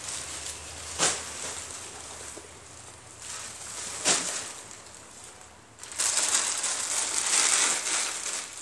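Large plastic sacks of collected plastic waste crinkling and rustling as they are handled. There are two sharp thuds, about a second in and about four seconds in, and a long stretch of loud crinkling near the end.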